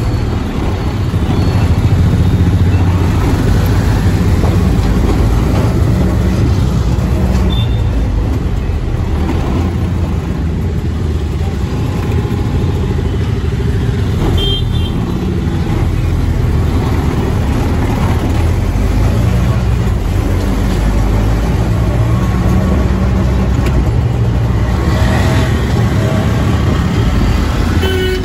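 Auto rickshaw engine running steadily, heard from inside the moving cabin, with road and traffic noise around it.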